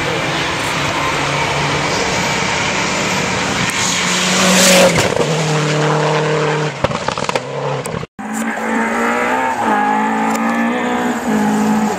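Rally car engines on a gravel stage. One car passes close at full throttle about five seconds in, its engine note dropping as it goes by. After a sudden cut, another rally car is heard further off, revving up through the gears.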